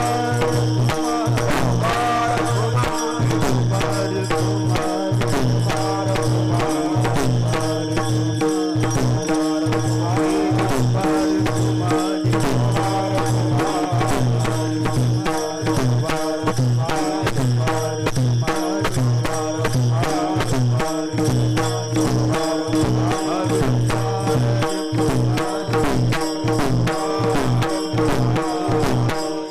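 Kirtan devotional music: a fast, steady rhythm of hand cymbals and drum over a held drone, with a wavering melody on top.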